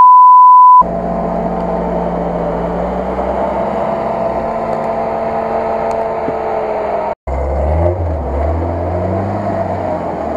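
A loud steady beep tone for about the first second, a censor bleep. Then an off-road UAZ jeep's engine runs steadily, stuck in mud. After a brief dropout about seven seconds in, the engine comes back as a deeper low rumble.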